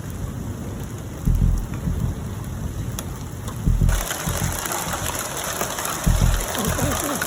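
Hail and rain pelting down as a steady hiss that turns louder and brighter about four seconds in, with a few short low gusts of wind buffeting the microphone.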